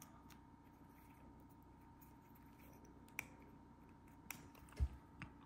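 A few faint, sharp plastic clicks as the remote unit of a Honda key fob is pressed and snapped shut after its coin-cell battery change, with a soft knock near the end.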